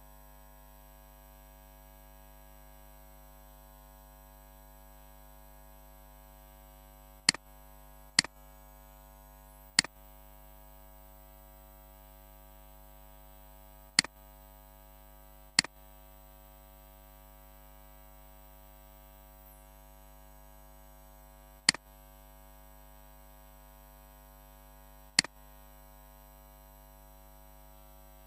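A steady electrical mains hum, broken by seven sharp computer mouse clicks at irregular intervals, three of them close together around the middle third.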